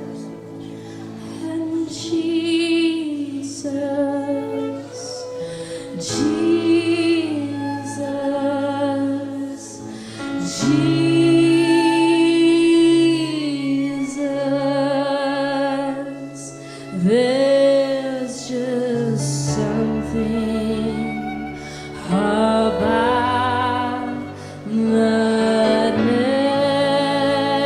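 Worship music: a woman sings long, held, wordless phrases with strong vibrato over sustained accompaniment chords.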